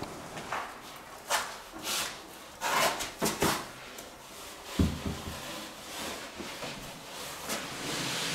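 Clothing rustling, shoes scuffing and hands knocking on a wooden window sill as a person climbs in through an open sash window, with a heavier thump about five seconds in.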